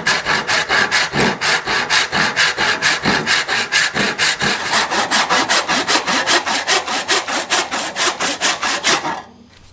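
Hand backsaw cutting through a black walnut axe-handle wedge in fast, even strokes, about five a second, stopping just before the end.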